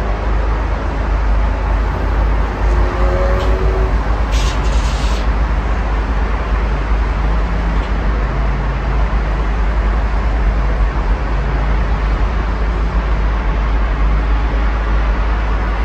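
Steady road traffic on a busy multi-lane road: a continuous rumble of passing cars, with a faint hum from one vehicle in the first few seconds.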